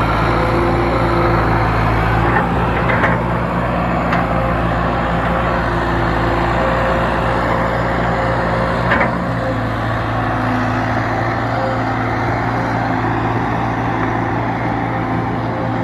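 The diesel engine of an old piece of heavy equipment running steadily under load. A few short knocks come through it around 3 seconds in and again around 9 seconds in.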